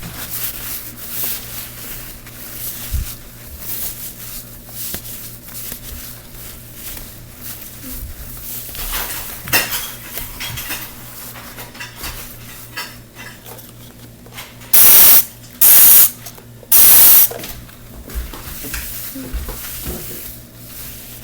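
Rubbing and scrubbing noises of cleaning, then three loud short sprays from a spray bottle about fifteen seconds in, each lasting about half a second.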